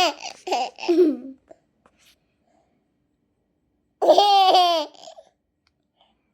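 A baby laughing in two short bursts of giggles, one at the start and another about four seconds in, with silence between them.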